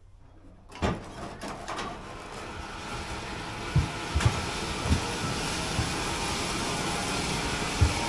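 Horse-powered sweep drive and its gearing running: a steady mechanical rumble and whir that builds after a quiet first second, with a few dull thumps.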